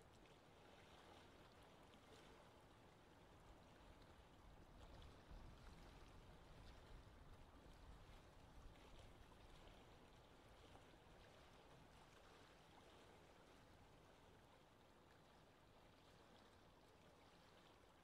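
Very faint wash of lake water lapping at the shore, a little louder between about five and ten seconds in.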